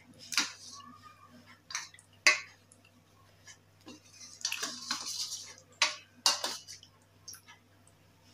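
Sticks being washed by hand in a shallow steel plate of water: scattered light clinks of the sticks against the steel, small splashes, and a short stretch of rubbing about halfway through.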